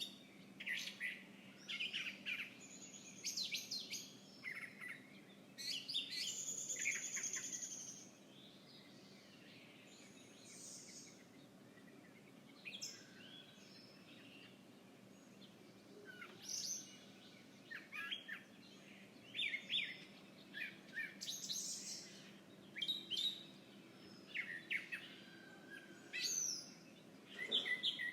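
Small birds chirping, short high chirps coming in quick clusters, with a longer run of song about six seconds in and a sparser spell of calls in the middle. A faint steady low hum sits underneath.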